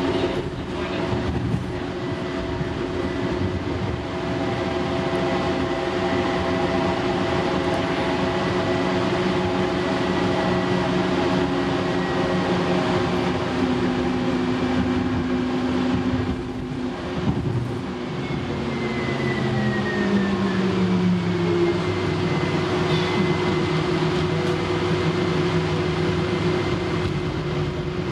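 Light rail car running along the track, heard from inside the car: a steady rumble of wheels on rail with the electric drive's layered whine. About two-thirds of the way through, the whine's tones slide lower as the train eases off speed.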